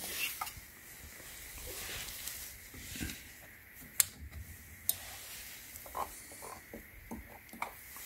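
Two sharp clicks about a second apart as the power switch on the back of an ION Total PA Extreme speaker is pressed, followed by a few fainter short clicks and handling sounds at the speaker's control panel.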